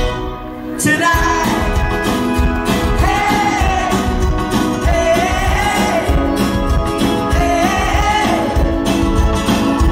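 Live pop-rock band with a male lead singer, acoustic guitar, bass, drums and keyboard. The music thins out briefly at the start, then the full band comes back in about a second in, with a steady kick-drum beat under the sung melody.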